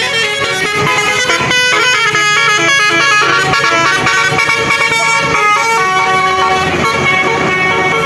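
Bus's Basuri 'telolet' musical air horn playing a melody, a quick run of horn notes stepping up and down in pitch.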